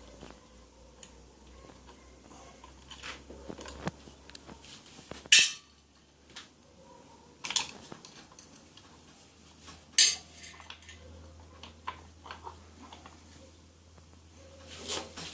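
Metal tools and engine parts clinking and clanking against each other during hand work on a motorcycle engine, with three sharp, loud clanks spaced a couple of seconds apart through the middle.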